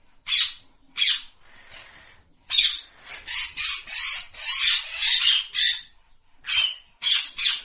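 Blue-headed parrot giving harsh squawks: a few single calls, then a fast run of calls through the middle, then several more near the end.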